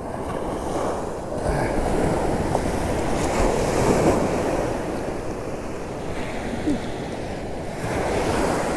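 Ocean surf breaking and washing up a sandy beach, with wind buffeting the microphone. The wash swells about a second and a half in and again near the end.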